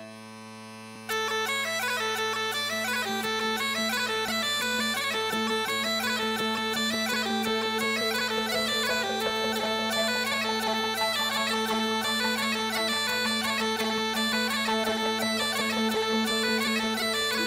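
Bagpipe music: steady drones sounding, with a fast chanter melody full of quick ornamental notes coming in about a second in.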